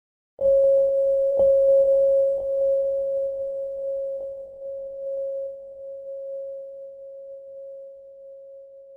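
A single steady electronic tone, close to a pure sine tone, cuts in abruptly under half a second in and slowly fades over the following seconds, with a few faint ticks along the way.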